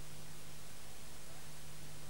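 Steady background hiss with a constant low hum, the noise floor of the recording, with no other sound.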